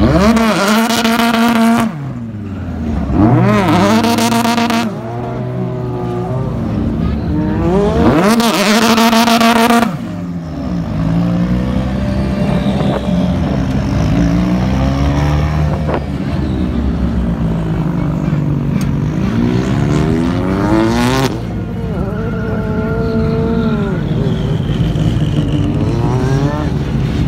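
BTCC touring cars' turbocharged two-litre engines passing close one after another, very loud three times in the first ten seconds as each car goes by. After that more cars go past a little further off, their engine notes rising and falling in pitch as they rev and pass.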